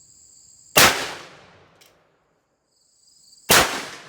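Two rifle shots from a CVA Paramount .45 inline muzzleloader, under three seconds apart, each a sharp crack with a short echoing tail. Crickets trill steadily just before each shot.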